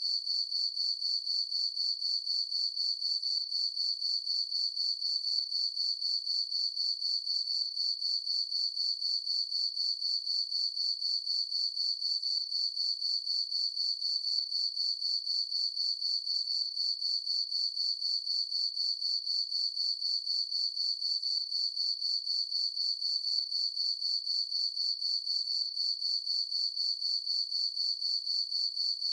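Crickets chirping in a steady chorus: one high, even tone made of rapid, evenly repeating pulses, with no low frog calls heard.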